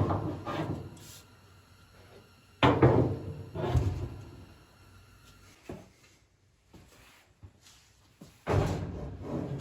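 Three loud clunks with short rattling tails, about three seconds apart, from the dryer's metal parts being knocked and handled during the repair.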